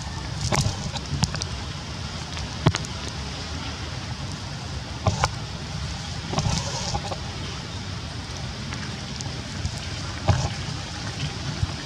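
Steady rain and wind noise, with wind rumbling on the microphone and a few scattered sharp taps.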